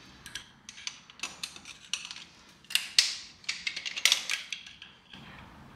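Metal-on-metal clicking and scraping while picking at broken connecting-rod fragments wedged inside an LS2 V8 engine block: a quick run of light ticks, with the loudest scrapes about three and four seconds in.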